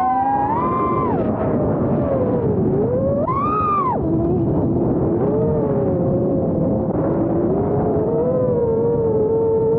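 FPV quadcopter's brushless motors and propellers whining, the pitch rising and falling constantly with the throttle. There is a sharp climb right at the start and a quick punch up to a high whine about three and a half seconds in, over a steady rush of prop wash.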